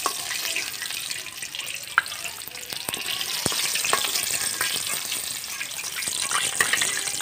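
Chicken pieces deep-frying in hot oil in a wok, a steady sizzle, with a few sharp clicks of a metal spatula against the wok as the fried pieces are lifted out.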